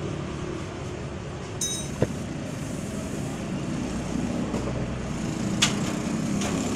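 Honda City's four-cylinder engine idling steadily, with two sharp clicks, one about two seconds in and another at about five and a half seconds.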